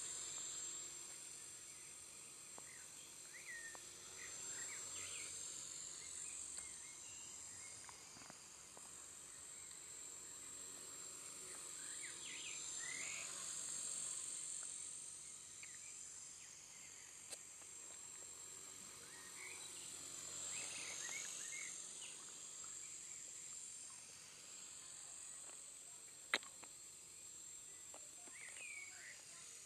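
Walkera 4G6S flybarless micro RC helicopter's electric motor and rotor whining at a high pitch, swelling and fading as it flies about, with birds chirping. One sharp click near the end.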